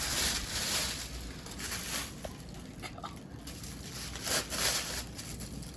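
Packaging being handled during unboxing: crinkling and rustling in a few short bursts, with a couple of faint clicks.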